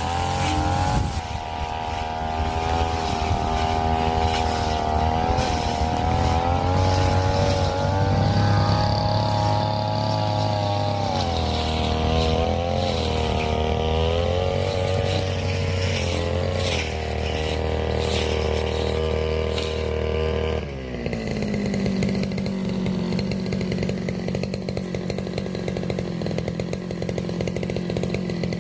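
Brush cutter engine running at high speed, its pitch wavering as it cuts through scrub, with scattered crackles of the blade striking brush; about three quarters of the way through it drops to a lower, steadier speed.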